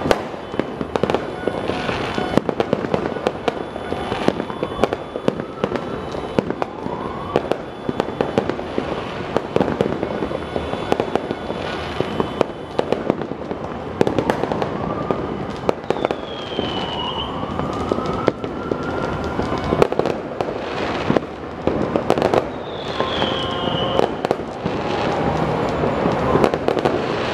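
Fireworks and firecrackers popping and crackling without pause, many at once and at several distances. Several times a whistling rocket glides up or down in pitch over the bangs.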